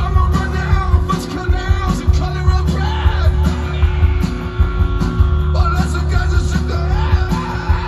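Rock band playing live at full volume: distorted electric guitars, bass and drums with a steady beat and singing, heard from the crowd.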